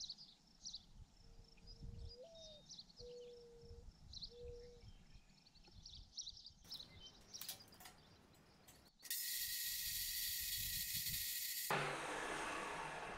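Outdoor ambience with birds chirping. About nine seconds in, an abrasive chop saw cutting steel starts abruptly with a loud, steady, high-pitched hiss, which turns rougher and fuller near the end.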